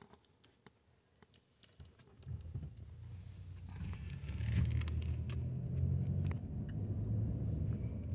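Car driving, heard from inside: a few faint clicks, then from about two seconds in a low rumble of engine and road noise that builds and holds steady, with a short hiss of wind partway through.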